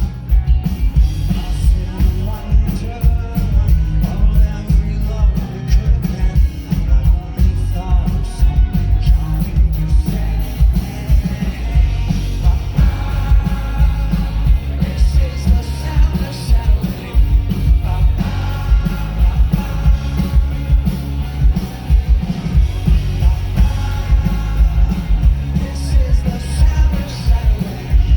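Live rock band performing with a male lead vocal over drums, bass and electric guitars, the low end heavy and pulsing, as heard at a concert.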